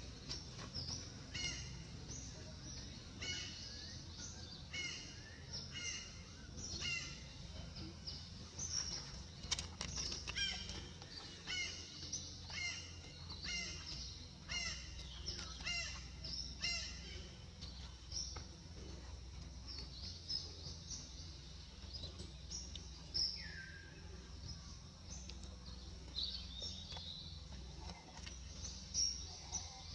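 Birds calling: short high chirps repeated in quick series through the first half, then sparser, with one falling whistle about two-thirds of the way in, over a steady low background hum.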